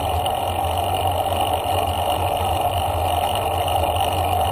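Steady rushing noise of a bicycle ride at about 9 mph: wind on the microphone and tyres rolling on asphalt, with no distinct knocks or clicks.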